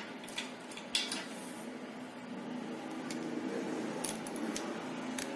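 Light metallic clicks and clinks as steel rollers and springs are pressed into place in the one-way starter clutch of a Bajaj Discover engine. There are a handful of separate clicks, the sharpest about a second in, over a steady low background hum.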